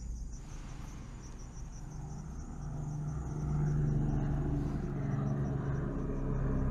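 Crickets chirping steadily in a night ambience. A low, held drone swells in about halfway through.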